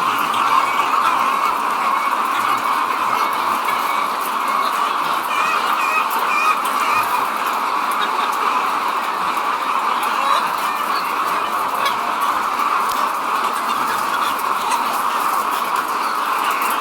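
A large flock of poultry-farm chickens clucking and chattering together in a steady, dense din.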